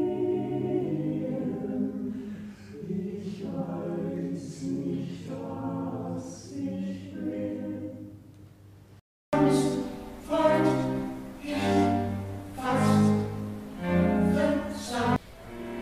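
A group of voices singing slowly in harmony, phrases held and swelling. The singing is quieter at first, breaks off briefly just before nine seconds, then comes back louder in phrases of about a second each.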